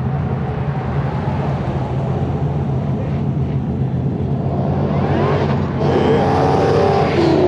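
Car engines idling with a steady low rumble. About five seconds in, one engine revs up and accelerates hard, rising in pitch and growing louder toward the end.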